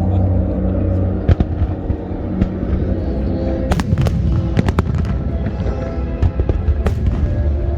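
Aerial fireworks bursting in a pyromusical display: sharp bangs about a second in, a quick run of them in the middle and another near the end, over the show's music soundtrack playing loudly.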